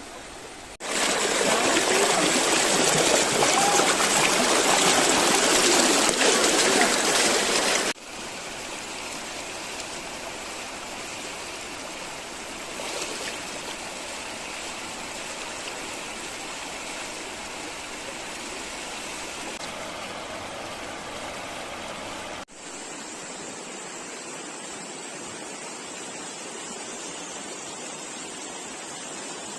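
Flowing river water rushing steadily. The sound is loudest and fullest for the first several seconds, then drops abruptly to a moderate level, and drops again to a thinner, quieter rush near the end.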